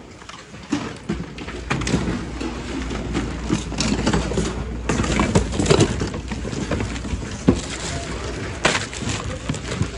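Junk being rummaged through in a large plastic thrift-store bin: plastic-bagged items rustling and objects knocking together in irregular clatters, with shoppers' voices in the background.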